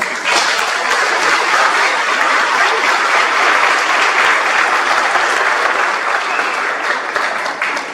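An auditorium audience applauding, with dense, steady clapping.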